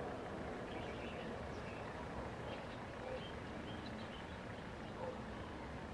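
Small birds chirping now and then over a steady low outdoor rumble and hiss.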